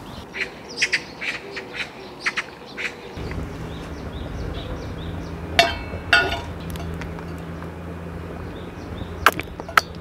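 Two loud metallic clanks about halfway through as a large steel wok-style pan is set onto a small box-shaped wood-burning camp stove, followed near the end by a quick run of light taps as a utensil works the water in the pan. A scatter of short clicks comes in the first three seconds, and a low steady hum sets in about three seconds in.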